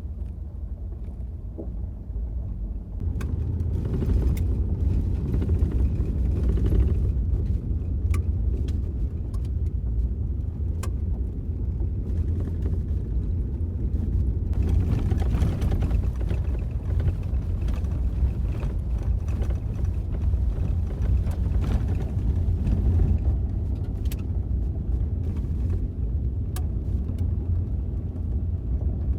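Steady low rumble of a vehicle driving on a gravel road, heard from inside, with a few small clicks scattered through it. It grows louder about three seconds in.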